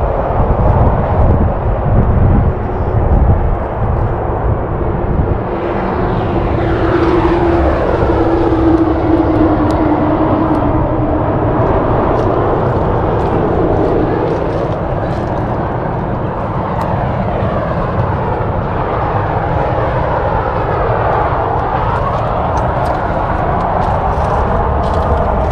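An airplane passing overhead: a steady drone with a rushing sound that slowly sweeps in pitch as it goes over. For the first four seconds there is a low, gusty rumble of wind on the microphone.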